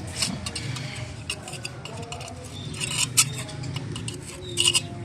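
Irregular metallic clinks and scrapes of hand tools such as spanners against the metal parts of an electric water-pump motor being dismantled, with a few louder clatters about three seconds in and near the end, over a steady low hum.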